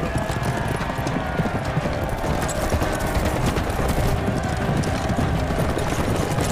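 Horses galloping hard down the jousting lists, a rapid, continuous drumming of hooves, with a crowd shouting and cheering.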